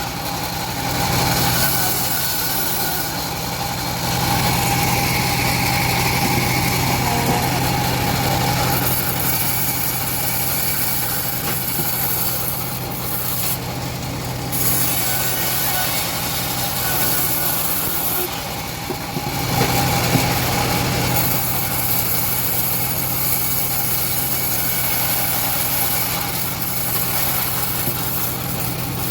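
Homemade engine-driven bandsaw sawmill running steadily while its blade saws through old teak wood.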